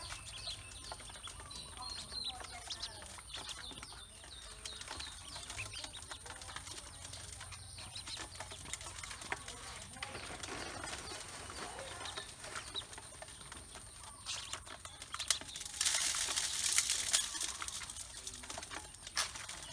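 Ducklings pecking feed from the bottom of an aluminium basin, their bills tapping and scraping on the metal in quick irregular clicks, with a few high peeps. About three-quarters through comes a louder, harsher scuffling burst lasting a second or two.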